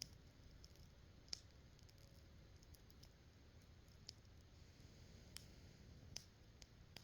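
Faint, irregular crackles and pops from a small wood campfire, about one every second or so, over a low steady background rumble.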